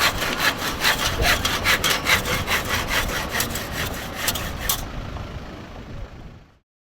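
Hand saw cutting through a length of pipe, in quick, even rasping strokes of about four a second. The strokes stop a little under five seconds in, leaving a fading background hiss that then cuts off abruptly.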